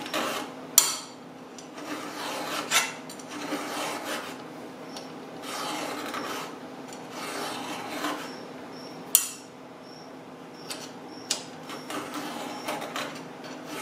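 Round chainsaw file rasping across the cutting teeth of a chainsaw chain in repeated hand strokes, with a few sharp clicks between strokes.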